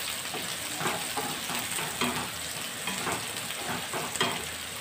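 Chopped onions sizzling in hot oil in a kadhai while a wooden spatula stirs and scrapes them around the pan in repeated strokes, with one sharper knock of the spatula about four seconds in. The onions are being fried until soft.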